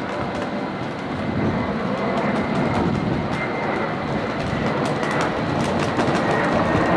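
Jet airliner's turbofan engines on final approach, a steady rushing rumble that grows gradually louder, with a faint high whine held over it.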